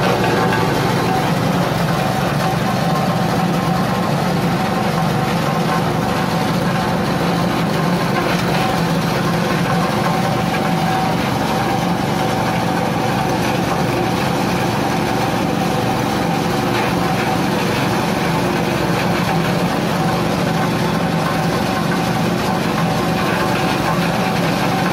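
Small petrol engine running steadily, driving a coconut husk grinder as it shreds husk into coir fibre and cocopeat. The sound is even throughout, with a constant hum and a few steady tones.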